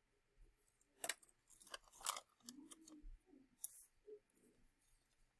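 Faint, irregular small clicks and rattles: a cluster about a second in, another near four seconds, and a short low sound between them.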